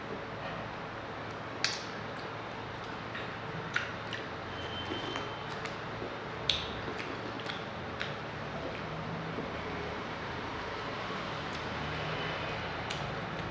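Two people drinking lassi from glasses as fast as they can: wet swallowing and slurping sounds with a few sharp knocks, the loudest about a second and a half in and again near four and six and a half seconds, over a steady background hiss.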